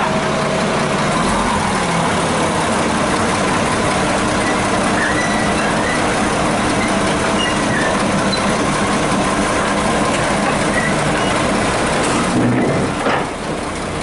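Komatsu crawler bulldozer's diesel engine running steadily while the machine creeps onto a flatbed truck's steel deck, tracks clanking. The sound dips briefly near the end.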